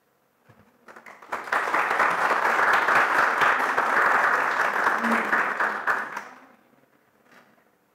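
Audience applauding, building up about a second in and dying away after about five seconds.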